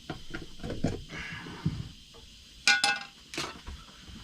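Small knocks and clatter of things being handled on a workbench, with a sharp ringing clink, like light metal or glass struck, about two and a half seconds in.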